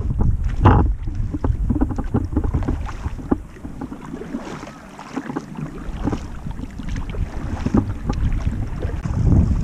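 Kayak paddle strokes splashing and dripping in the water, with wind buffeting the microphone; the wind rumble eases about midway and builds again near the end.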